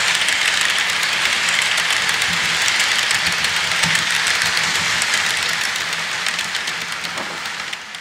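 HO scale model freight cars rolling along the track: a steady rolling hiss with many small clicks of wheels over rail joints, under a faint motor hum. The sound fades over the last couple of seconds as the end of the train passes.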